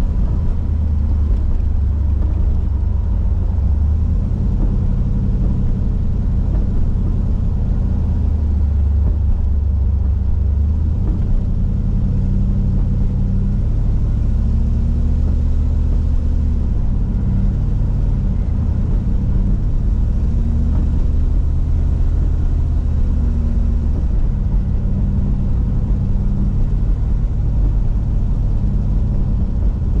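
Turbocharged 408 cubic-inch LS V8 in a 1980 Ford Thunderbird running at low speed while the car is driven, heard from inside the cabin. The engine note lifts and settles gently twice, about halfway through and again a few seconds later.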